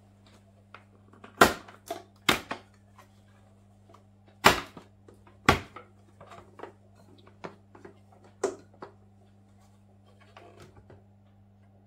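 Hard plastic snaps and clicks from the head and locking clips of an EHEIM Professionel 5e 350 canister filter being worked by hand: five loud snaps spread over the first nine seconds among smaller clicks and rattles.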